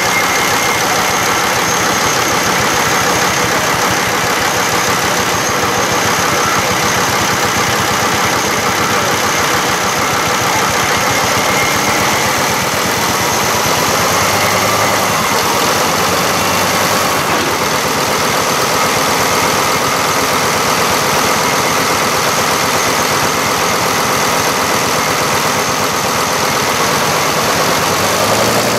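Tractor engine running steadily and loudly at a constant speed.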